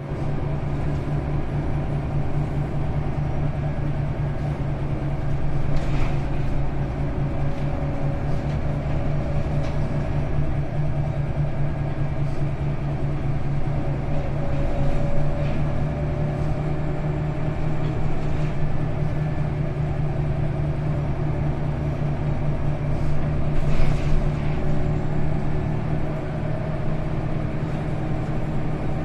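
Scania L94UB city bus under way, heard from inside the cabin: its rear-mounted diesel engine drones steadily, with a couple of short sharp knocks or rattles along the way.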